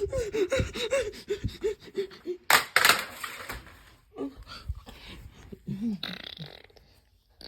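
A person's voice making a quick run of short, pitched vocal sounds, about three a second, then two sharp crashes close together; after that, quieter scattered sounds die away.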